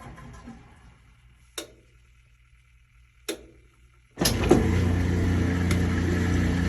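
Kenmore 80 Series direct-drive washing machine: two sharp clicks, then about four seconds in the motor starts and runs steadily, driving the drain pump in a normal neutral drain.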